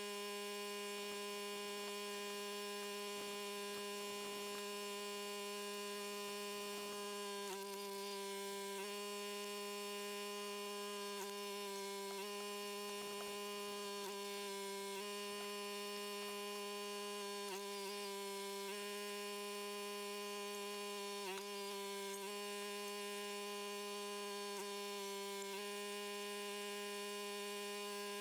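A log splitter's engine-driven hydraulic pump running as a steady pitched hum. Its pitch sags briefly a number of times as the ram takes load splitting wood.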